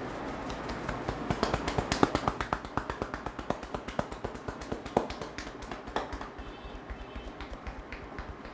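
A barber's hands tapping and slapping rapidly on the head during an Indian head massage, about seven sharp slaps a second, starting about a second in and growing fainter over the last couple of seconds.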